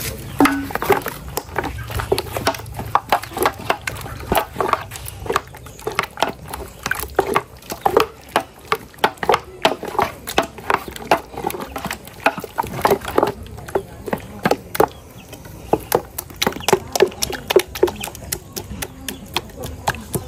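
Pestle knocking repeatedly, about two strikes a second, uneven, as mango is pounded to squeeze out its juice; a short lull about two-thirds of the way through.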